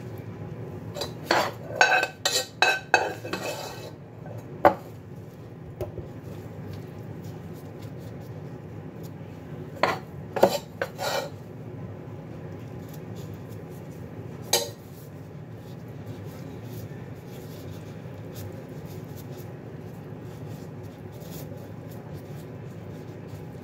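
Spoon clinking and tapping against a dish while cabbage-roll filling is scooped out: a quick run of clinks near the start, a few more about ten seconds in, and the odd single knock. A steady low hum runs underneath.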